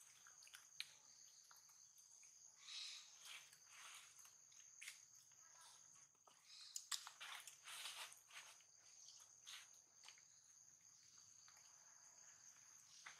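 Faint, steady, high-pitched drone of insects, with scattered soft rustles and clicks.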